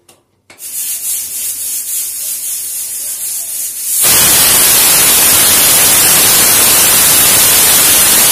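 Pressure cooker venting steam through its weighted valve. A high hiss starts about half a second in, then about four seconds in it becomes a loud, steady full steam blast: the cooker's whistle, which signals that pressure has built up inside.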